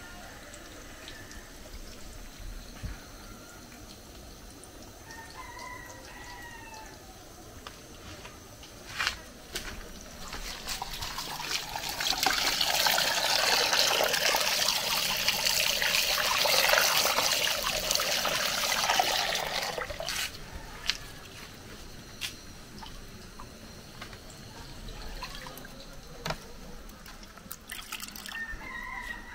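Tap water running hard into a glass bowl and splashing over croaker fish as they are rinsed by hand, for about eight seconds in the middle. Before and after it there is quieter handling with a few sharp clicks and some brief chirps.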